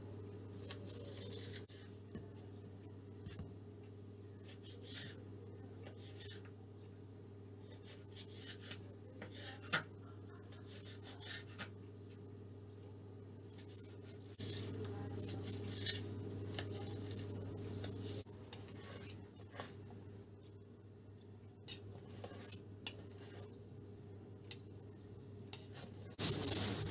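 Kitchen knife cutting raw lamb belly on a plastic cutting board: scattered slicing rasps and light taps of the blade on the board over a steady low hum. A louder noisy rasp starts just before the end.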